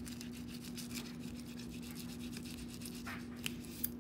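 Fillet knife scraping in quick short strokes between a fish fillet's skin and meat as the fillet is skinned, over a steady low hum. Two sharp clicks near the end.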